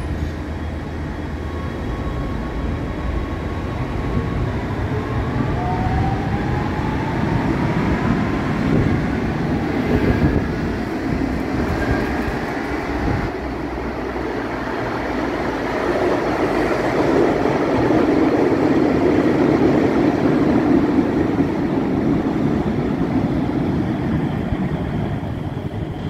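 Cologne Stadtbahn light-rail train pulling out of an underground station: its traction motors whine, rising slowly in pitch as it accelerates into the tunnel, over the rumble of wheels on rails. In the second half a low rail rumble swells as the next train approaches.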